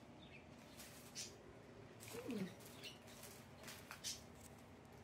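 Faint, scattered crinkling of candy wrappers and packaging being handled, with a short falling squeak about two seconds in.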